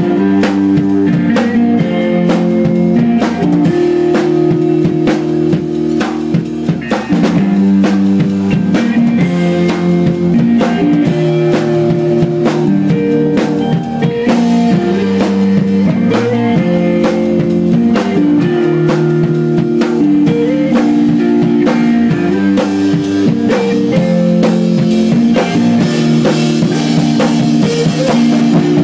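Math rock band playing live and loud: repeating guitar lines that keep changing notes over a busy drum kit with rapid hits.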